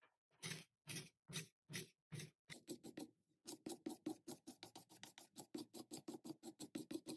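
A steel card scraper is drawn in quick strokes along a green-wood walking stick, scraping off the remaining bark. The strokes come about two a second at first, then, after a short pause about three seconds in, speed up to four or five a second.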